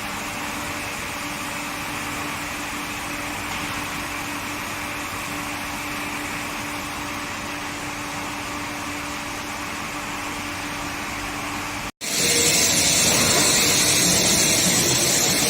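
Induction quenching equipment running with a steady machine hum and one constant tone. About twelve seconds in, the sound cuts off abruptly and gives way to a louder, hissier machine noise.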